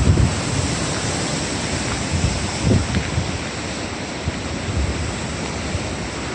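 Strong wind buffeting a phone's microphone: a steady rushing noise with a gusty low rumble underneath.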